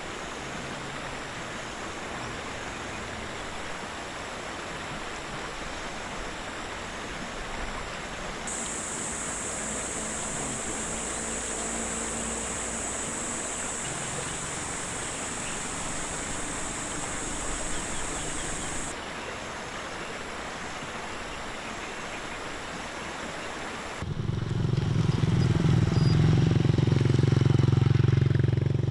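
Steady outdoor background noise, with a high steady hiss for about ten seconds in the middle. About 24 seconds in, motorcycles pass loudly for about five seconds, their engines running.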